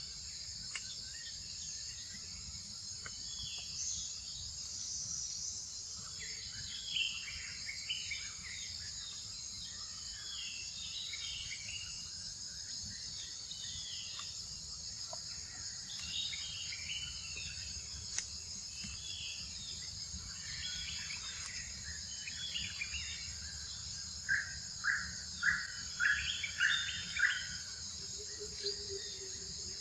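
Forest ambience: a steady high drone of insects with birds chirping here and there. Near the end comes a run of about six loud, sharp chirps in quick succession.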